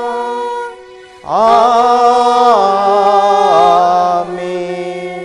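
Slow sung Telugu liturgical chant closing the Eucharistic Prayer's doxology. A held note ends within the first second. Just after a second in, a loud new phrase of long held notes begins, stepping down in pitch, and it goes on softer near the end.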